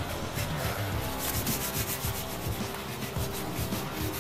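Tissue dampened with isopropyl alcohol scrubbed rapidly back and forth over the plastic top case of a Commodore C2N Datasette, each stroke a short rubbing swish.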